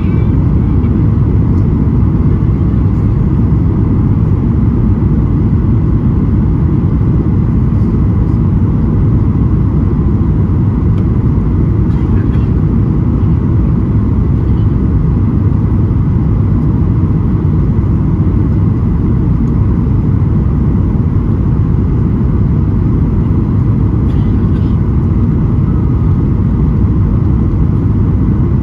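Steady roar of a Boeing 737-800's CFM56-7B engines and rushing air, heard inside the cabin during the descent on final approach. A faint steady high tone sits over the low rumble.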